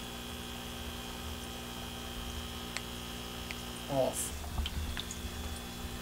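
Vintage Supra aquarium air pump humming steadily. About four seconds in a high whine in the sound cuts out with a click as the pump and bubble lamp are switched off by remote, leaving a lower hum.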